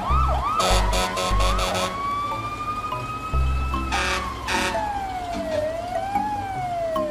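A siren: quick repeated sweeps for the first couple of seconds, then a slow wail that rises, falls and rises again. Under it runs background music with a drum beat and cymbal-like hits.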